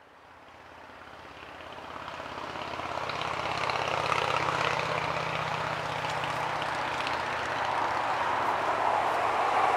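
Steady drone of a propeller aircraft engine passing overhead, fading in over the first few seconds and then holding, with a broad rushing hiss that grows louder toward the end.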